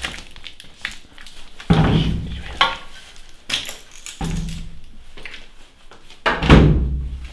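A run of about five heavy thuds and knocks, each sudden, the loudest near the end.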